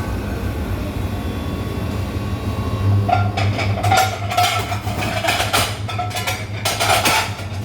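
Kitchen dishwashing: a steady low machine hum, with dishes clattering and clinking from about three seconds in.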